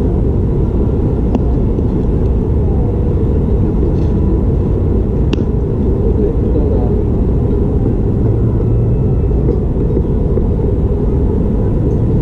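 Steady, loud low rumble of wind buffeting the camera's microphone, with a single sharp click about five seconds in.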